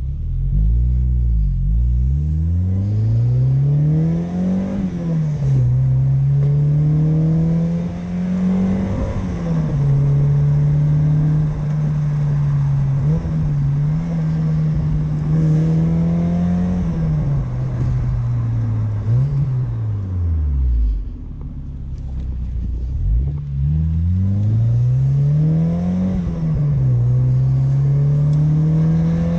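1993 Mazda MX-5 Miata's 1.6-litre four-cylinder through an aftermarket Cobalt exhaust, pulling through the gears: the engine note rises and drops back at each upshift, then holds fairly steady while cruising. About two thirds through it falls off as the car slows, with a quick rev blip on a downshift, and then climbs through the gears again.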